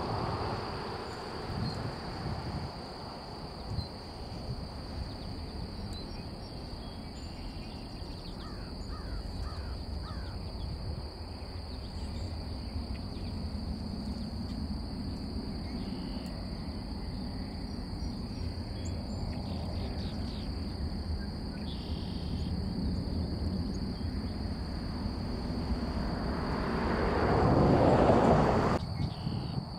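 Twin-engine jet airliner climbing away after takeoff: a distant low jet rumble, with a steady high-pitched insect buzz over it. The rumble swells louder near the end and then cuts off suddenly.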